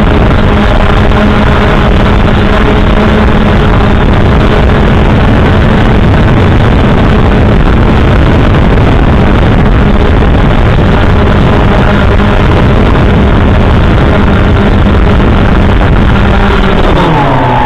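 3DR multirotor drone's electric motors and propellers heard from its onboard camera: a loud steady hum over a rushing noise. Near the end the pitch slides down as the motors spin down on landing.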